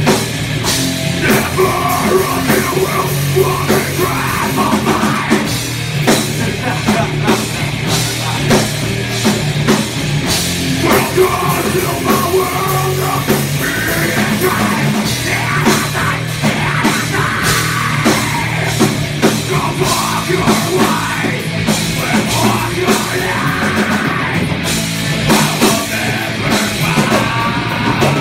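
Live rock band playing loudly: electric guitar over a drum kit, with dense drum hits throughout.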